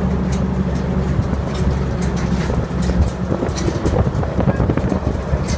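Safari tour truck driving over a rough dirt track: a steady low engine and road rumble with scattered clicks and rattles from the jostling vehicle, and some wind on the microphone.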